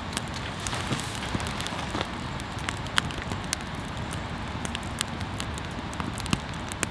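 Firewood burning in a metal fire pit, crackling steadily with frequent sharp irregular pops; one of the louder pops comes about three seconds in.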